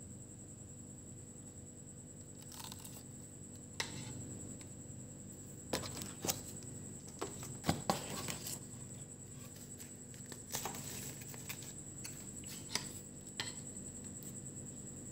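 Close handling of a takeaway meal in its paper box: irregular light clicks, taps and short rustles and tearing sounds of paper and plastic packaging, busiest in the middle.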